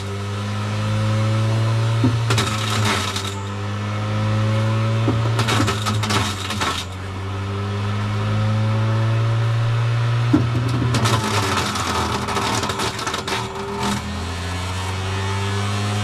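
Electric fruit grinder running with a steady motor hum while apples are fed in, crunching and rattling through the blades in three spells. The motor's pitch dips and climbs back as each load goes through.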